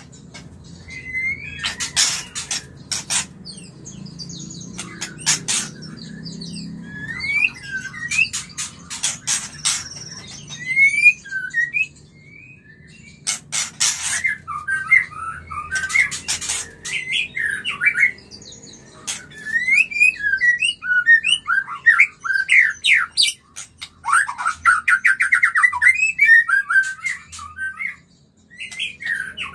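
White-rumped shama (murai batu) singing in breeding mood: varied whistled and chirping phrases broken by sharp clicking notes, with a quick run of rattling notes near the end. This is the song used to stir other shamas into mating condition.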